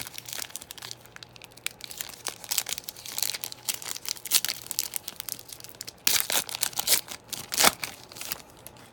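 Plastic wrapper of a trading-card pack crinkling and tearing as it is ripped open by hand, in irregular crackles with a louder burst of ripping about six seconds in.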